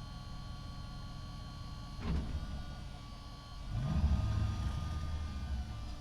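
Truck engine running low and steady inside a parking structure, with a sudden louder low burst about two seconds in, then revving up with rising pitch just before the four-second mark and running louder after that.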